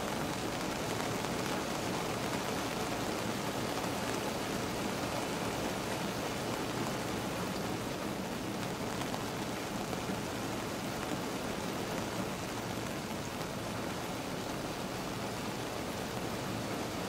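Steady summer-night rain falling on a car, heard from inside the cabin: an even, unbroken hiss of drops.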